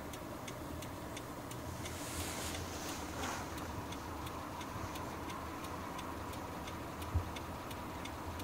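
Faint, steady ticking, about three ticks a second, over a low hum, with one soft thump about seven seconds in.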